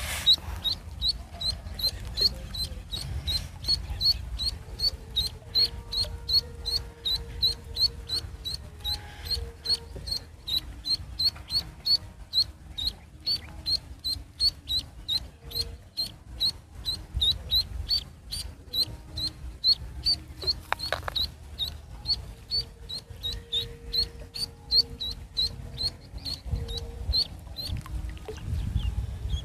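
Duckling peeping steadily and rapidly, a short high peep about three times a second, stopping near the end.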